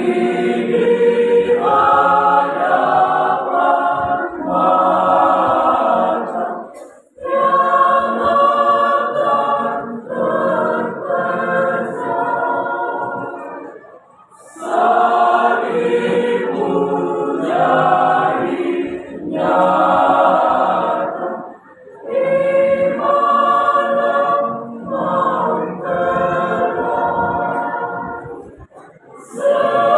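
Mixed choir of men's and women's voices singing a hymn in parts, in phrases of about seven seconds with short breaks for breath between them.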